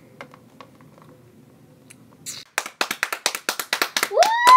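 Quick hand clapping starts about two and a half seconds in. Near the end a child's voice joins in on a high held note.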